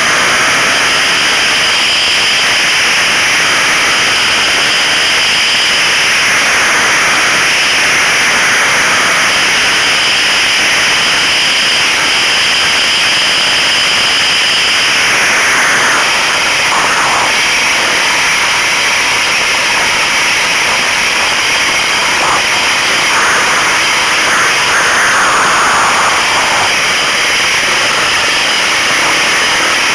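Trail motorcycle riding along a dirt track, its engine running and rising and falling in pitch, under a steady loud rush of wind noise.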